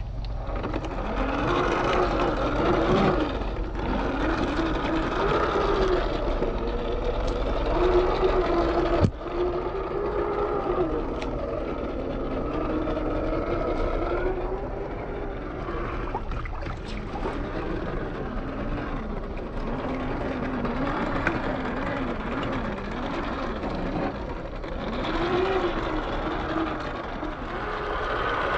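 Electric motor and drivetrain of a 1/10-scale RC rock crawler whining, its pitch rising and falling with the throttle, as the truck sloshes through muddy water. There is one sharp knock about nine seconds in.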